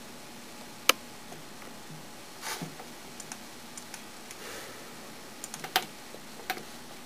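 Scattered sharp clicks and a short rustle from objects being handled: one loud click about a second in, a brief rustle around two and a half seconds, and a quick cluster of clicks near the end.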